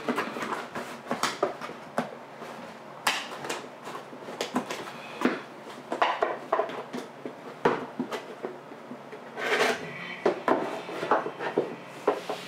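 Cardboard box and packaging being handled and pushed aside on a desk: irregular knocks, scrapes and rustles, with a longer rustle about two-thirds of the way through.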